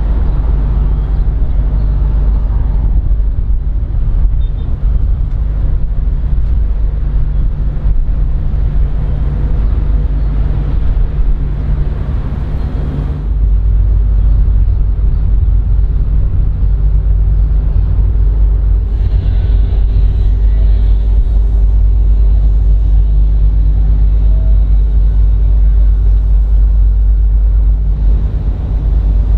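Steady low engine rumble with a constant hum, a little louder from about a third of the way in.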